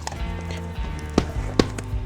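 Background music, with two sharp knocks a little after a second in, about half a second apart.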